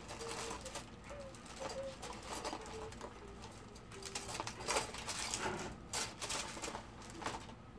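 Rummaging through small parts and tools on a workbench: scattered clicks, knocks and rustles, with faint short tones now and then.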